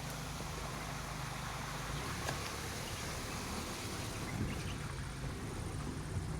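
A vehicle driving in the rain: a low engine hum under a steady hiss of rain and wet road. The even engine note breaks up about two seconds in.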